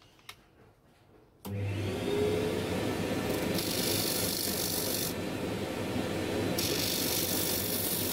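Homemade disc sander switched on about one and a half seconds in, its motor spinning up and running steadily together with a dust-extraction vacuum. Twice, the wooden handle of a table tennis bat is pressed against the sanding disc, giving a rasping hiss for a second or two each time.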